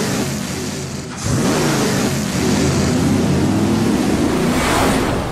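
NASCAR stock car V8 engines revving hard. A rev rises and falls near the start, then a louder engine comes in about a second in and its pitch climbs steadily as it accelerates.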